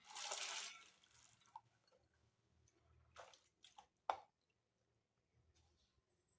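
Water splashing and sloshing in a bowl as soaked grain is washed by hand, with a short, louder splash at the start and then a few smaller drips and splashes, plus a sharp click about four seconds in.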